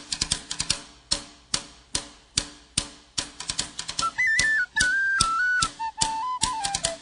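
Intro of an Irish folk-punk song: sharp drum hits, then a high tin-whistle melody coming in about four seconds in.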